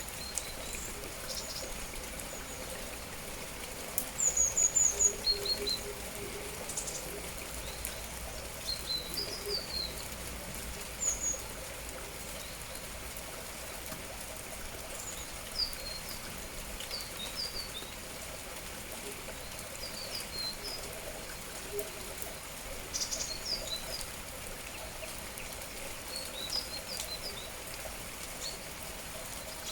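Small songbirds chirping in short, high, scattered calls, loudest in a quick cluster about four seconds in, over a steady hiss of falling rain.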